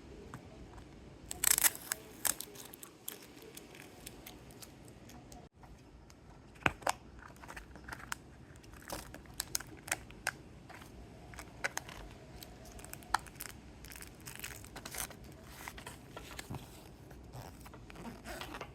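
Plastic wrapping crinkling and tearing, with scattered sharp clicks and snaps, as a gachapon capsule toy is unwrapped by hand.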